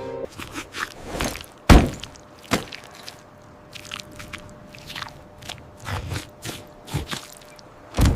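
A string of sharp knocks and thuds at irregular intervals; the loudest is a single heavy thud about one and a half seconds in.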